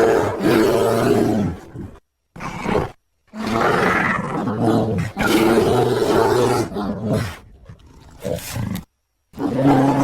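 Brown bear roaring and growling in a string of separate roars, some short and some several seconds long, with brief dead silences between them. A quieter growl comes near the end, and a new loud roar starts just after.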